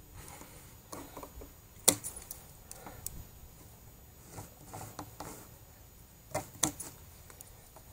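Long plastic cable ties being cinched and snipped with scissors around a geotextile-wrapped sump basin: scattered sharp plastic clicks and short ratcheting, the loudest snap about two seconds in and another pair of snaps about six and a half seconds in, with quieter handling noise between.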